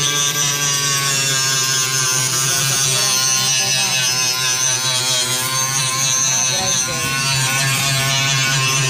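A power tool's electric motor running steadily, a buzzing whine that holds an even pitch.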